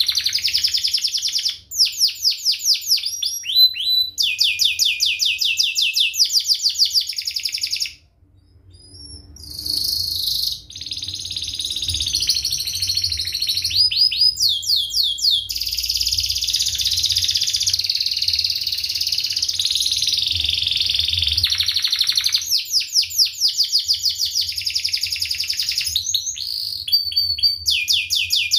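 Domestic canary singing a long, high-pitched song of chirps and fast, tightly packed rolling trills of evenly repeated notes. The song breaks off briefly about eight seconds in, then resumes.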